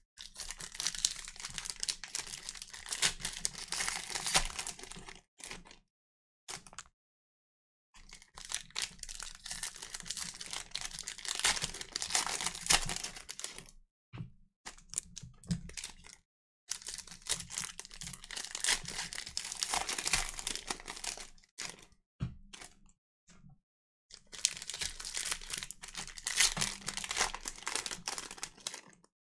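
Trading-card pack wrappers from a box of Fleer Hot Prospects football cards being torn open and crinkled by hand. The sound comes in four stretches of several seconds each, with short silences between.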